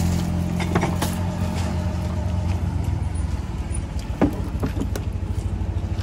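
A motor vehicle's engine passing close by, its hum fading over the first couple of seconds, then a steady low engine sound with a fast, even pulse, with a few light clicks.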